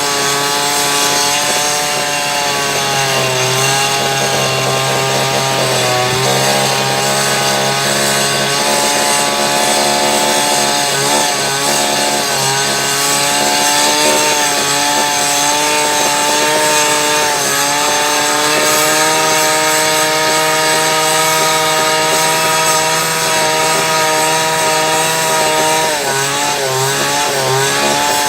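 Excavator diesel engine running steadily at high revs, its pitch dipping briefly several times as the hydraulics load it.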